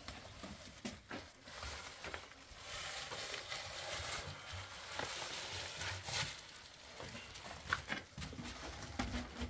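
Plastic wrapping film crinkling and rustling as a large wrapped bundle is gripped and lifted, with a few scattered knocks.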